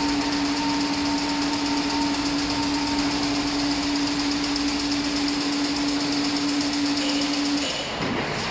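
A 6.5-metre-wide automatic chain link fence machine running: a steady motor hum with a high whine over even machine noise. The hum cuts off near the end.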